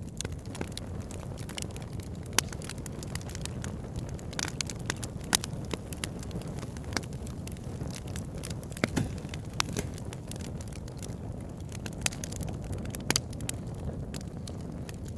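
Wood campfire burning: a steady low rumble under frequent, irregular crackles and sharp pops from the burning logs.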